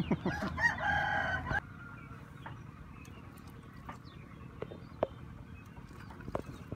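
A rooster crowing once, one held call that cuts off suddenly about one and a half seconds in. After it, a quiet background with a few sharp clicks.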